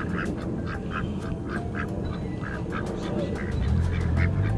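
White domestic ducks quacking in a steady run of short quacks, about three a second. A low steady hum comes in near the end.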